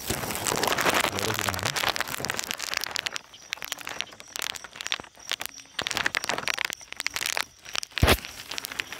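Plastic crinkling and rustling with scattered crackles over a steady hiss of rain, which is densest in the first three seconds. A single sharp knock comes about eight seconds in.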